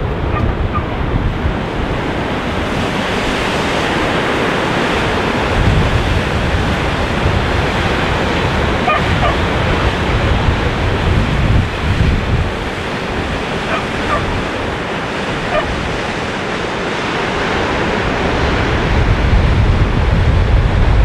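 Sea surf breaking on the rocks of a cove below, a steady rush, mixed with gusty wind buffeting the microphone that swells and eases several times.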